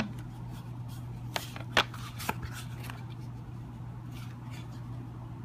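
A few light clicks and taps, about a second and a half to two and a half seconds in, from a hard-shell folio phone case being handled, over a steady low hum.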